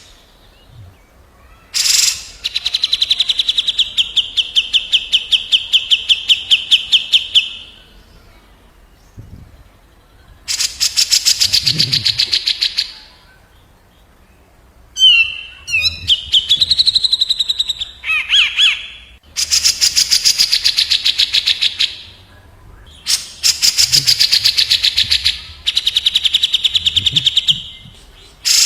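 Cucak jenggot (grey-cheeked bulbul) and kapas tembak trading loud, very fast rattling trills. There are five bursts, each a few seconds long with short pauses between, and one burst in the middle has sweeping up-and-down notes.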